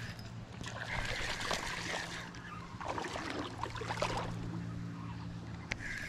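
Rustling of grass and brush, then a fishing lure cast into shallow river water, landing with a small splash about three seconds in.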